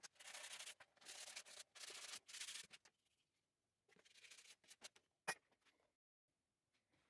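Sandpaper rubbed by hand over a small timber saw handle: three long strokes back to back, a shorter one after a pause, then a single sharp click about five seconds in.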